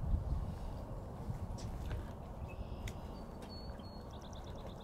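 Outdoor ambience: a low, steady wind rumble on the microphone with a few faint clicks, and a short, rapid bird trill near the end.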